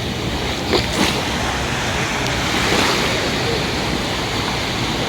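Sea waves breaking and washing on the shore, one wash swelling about three seconds in, with two short clicks about a second in.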